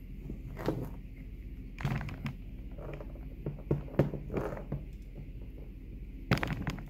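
Scattered light clicks and knocks over a steady low hum: handling noise around a small servo-operated cord release on a wooden block test rig, the sharpest knock about four seconds in and a cluster near the end.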